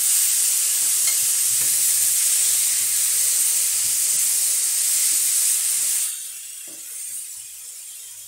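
Chopped tomato sizzling in hot oil with green peppers and onion in a frying pan, stirred with a wooden spoon. The loud, even sizzle drops off sharply about six seconds in.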